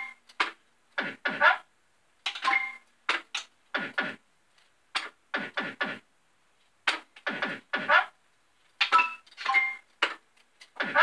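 Bell-Fruit Games Family Guy fruit machine being played spin after spin. A run of short electronic sound effects and clunks comes as the reels start and stop, some with brief beeps, separated by short silent gaps.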